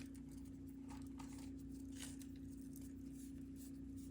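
Faint rustles and light taps of washi tape rolls and their packaging being handled, over a steady low hum.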